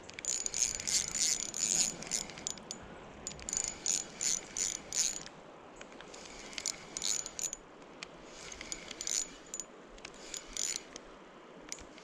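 Fishing reel being cranked in spells, its gears giving quick, high clicking bursts, busiest in the first few seconds and then in shorter spells with pauses between.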